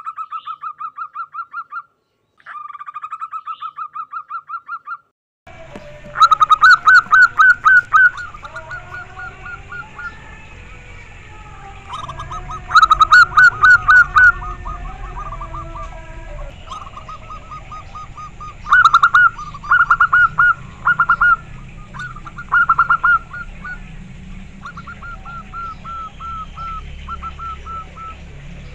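Zebra dove (perkutut) cooing: bouts of rapid, evenly repeated notes, several bursts with short pauses between, the later ones louder. A low steady background rumble comes in after about five seconds.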